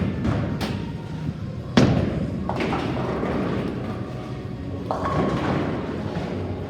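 Bowling-alley impacts: several heavy thuds of bowling balls and pins over a steady low rumble, the loudest about two seconds in, ringing on in a large hall.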